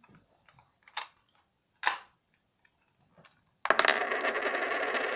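A Mighty Morphin Power Rangers morpher toy being worked: two sharp clicks about a second apart, then from about three and a half seconds in a loud, harsh, rattling noise that runs on.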